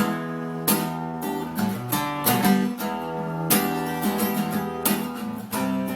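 Acoustic guitar strumming chords, starting suddenly.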